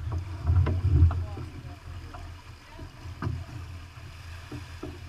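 Wind buffeting the microphone aboard a sailboat under sail, a heavy uneven rumble loudest in the first second, with water against the hull and a few short sharp slaps.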